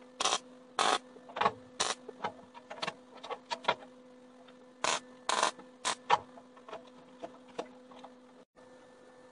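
A hand tool scraping along a steel sheet edge in short strokes: four strokes in the first two seconds, more scattered scrapes and clicks, then another run of three strokes about five seconds in. A steady low hum runs underneath and drops out briefly near the end.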